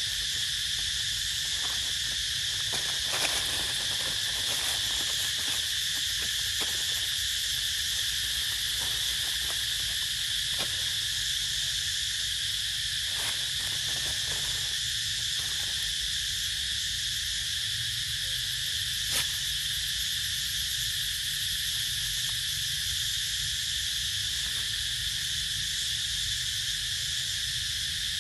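Steady, shrill chorus of forest insects, with a few short clicks scattered through it.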